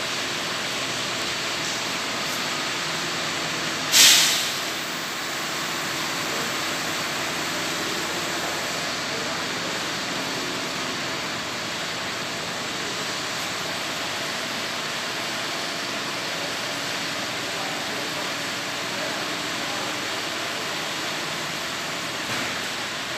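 Steady drone of an idling bus diesel engine. About four seconds in, one sharp burst of hissing air is released from the bus's air system and dies away within half a second.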